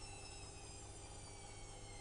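Electrolux EWS 1045 front-loading washing machine with its motor whining and slowly falling in pitch over a low hum: the drum is slowing down from a spin.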